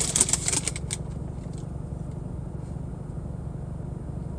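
Steady low rumble from the running car, which the owner takes for the air conditioning. About the first second also holds crackly rustling, like something being handled.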